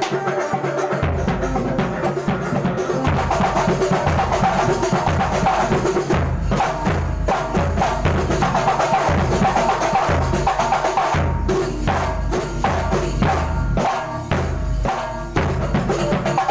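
Kuntulan ensemble rehearsing: dense hand-drum percussion with a melody over it, and a deep bass drum that comes in about a second in and keeps beating.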